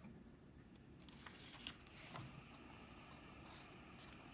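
Faint rustle and a few soft ticks of paperback book pages being turned by hand.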